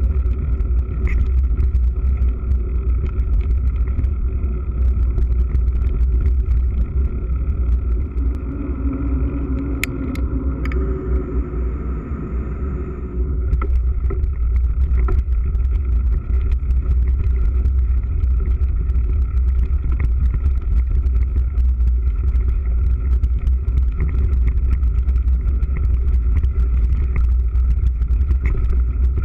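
Mountain bike riding fast over a rough dirt and grass track, heard from a GoPro mounted on the bike: a steady low rumble of wind and ground with frequent small rattles and clicks, easing off briefly around the middle.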